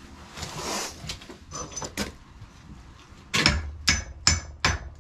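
Hammer striking metal held in a bench vise: a few lighter knocks with a slight ring, then a quick run of about five hard blows roughly two or three a second, starting past halfway.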